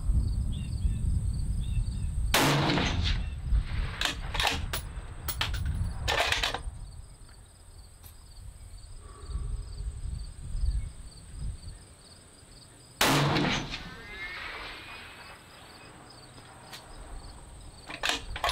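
Two shots from a 6.5 Creedmoor bolt-action hunting rifle, about ten seconds apart, with a run of sharp clicks and knocks between them. Crickets chirp steadily throughout.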